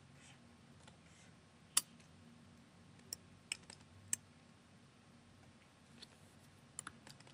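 A few scattered clicks of a computer keyboard and mouse over faint room hiss. The sharpest comes about two seconds in, a small cluster follows between three and four seconds, and a few lighter ones come near the end.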